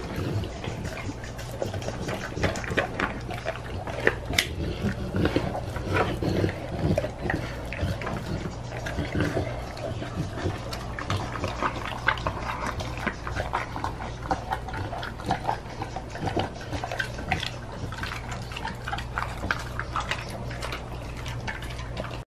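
Pitbull-mix dog chewing and licking a piece of raw pork, with wet, irregular smacking and clicking of the jaws and tongue. A steady low hum runs underneath.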